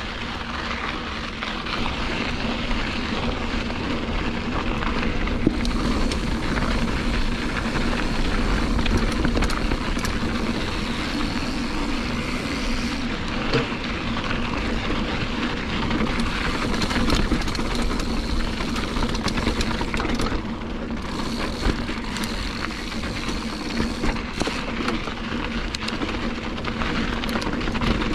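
Diamondback Recoil mountain bike being ridden on a dirt trail: a steady rumble of wind on the camera microphone mixed with tyre noise, with scattered clicks and rattles from the bike.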